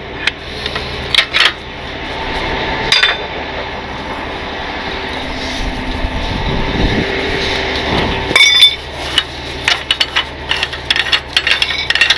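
Metal clinks and knocks of a tow truck's wheel-lift tie-down straps and strap winch being loosened by hand, with a steady hum in the middle and a run of rapid clicking in the last few seconds as the strap winch is worked.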